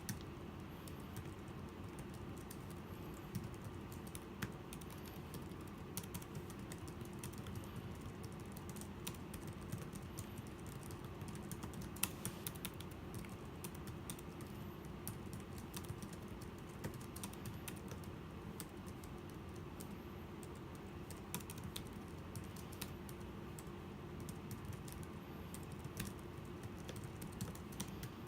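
Continuous typing on a Logicool iK1200 keyboard case for the iPad Pro: a fast, uneven run of key clicks over a steady low hum, with one louder keystroke partway through.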